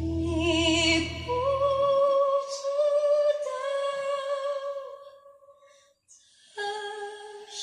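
Music played for a soundbar sound test: long held notes with vibrato over a bass line that drops out about two seconds in. The music fades to near silence around six seconds in, then a new musical passage begins near the end.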